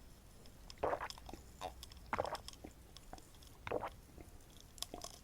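Close-miked chewing of jajangmyeon (black bean noodles), with three louder mouth sounds about a second and a half apart and faint clicks between.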